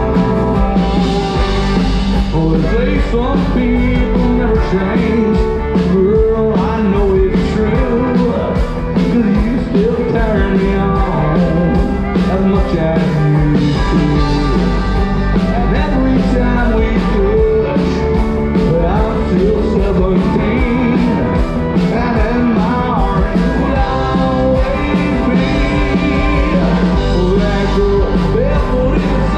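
Live country band playing loud through a PA: electric guitars, drums and bass, with a lead vocal at times.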